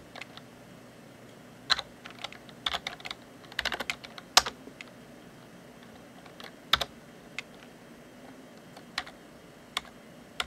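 Keys on a PS/2 computer keyboard being typed: a quick run of keystrokes about three to four seconds in, then single key presses a second or two apart.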